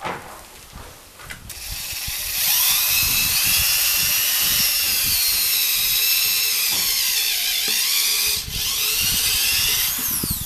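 Hand-held electric drill running, its bit boring into the rubber of a car tire, with a high whine that dips in pitch under load in the middle. It stops a little before the end, the pitch falling as the motor spins down.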